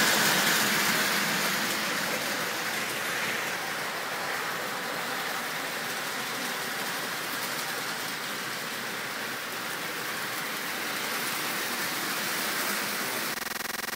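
Electric O-gauge toy trains rolling on three-rail track, a steady rolling rumble and rattle of metal wheels. It is loudest at the start as cars pass close by, then settles lower as the train runs further away.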